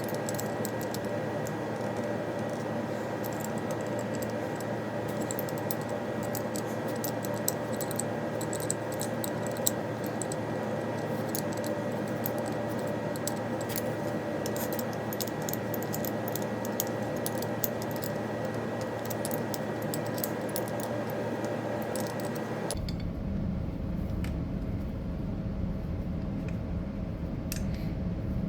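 Scattered light metallic clicks and clinks of hand tools working on a motorcycle brake caliper, over a steady hum. About 23 seconds in, the hum changes abruptly to a lower, rougher one and the clicks grow sparse.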